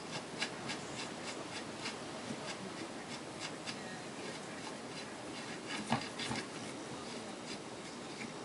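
Light metallic ticking and rubbing as the parts of a Sturmey-Archer three-speed hub clamped in a vise are turned by hand. The ticks come about three a second and fade, with one louder knock about six seconds in.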